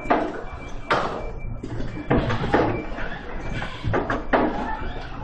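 Rotary-type automatic food tray-packaging machine running, its conveyor and mechanism giving sharp clunks about once a second, some in quick pairs, over a steady machine hum.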